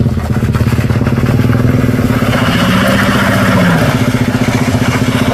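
A vehicle engine running close by at a steady speed with a fast, even beat; around the middle a second engine tone rises and falls briefly, over a rushing hiss.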